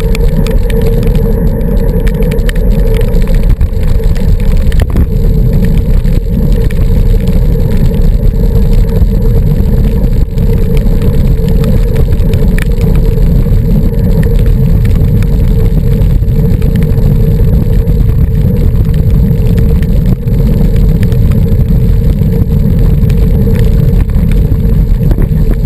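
Loud, steady wind rumble on a bike-mounted camera's microphone as a road bicycle is ridden along a wet street, with a steady hum underneath.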